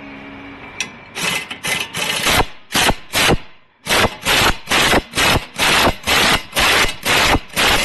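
Repeated short rasping or scraping strokes of hand-tool work, starting about a second in and going at roughly two to three strokes a second.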